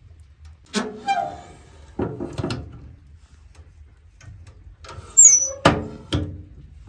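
Cast-iron wood-burning stove doors being shut and latched: sharp metal clanks and knocks with short rings, a few in the first couple of seconds and a louder cluster near the end.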